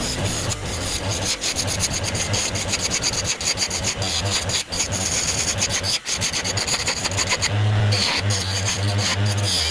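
Mini wood lathe running, its motor humming steadily while a turning tool scrapes and cuts the spinning wood in a rapid, rasping chatter. The hum grows louder near the end.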